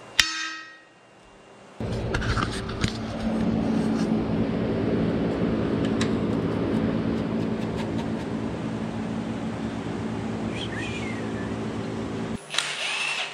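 A steel engine-mount bracket clanks once and rings as it is set down on the truck frame. Then a steady mechanical hum starts suddenly, runs for about ten seconds and cuts off just as suddenly, with a short rush of noise near the end.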